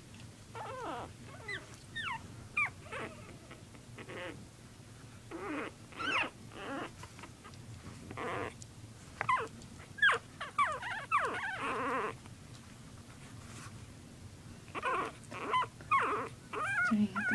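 Three-week-old puppies play-fighting: short high-pitched whimpers and yelps, many falling in pitch, with a few rougher, grumbling cries. They come in clusters, with a lull about two-thirds of the way through.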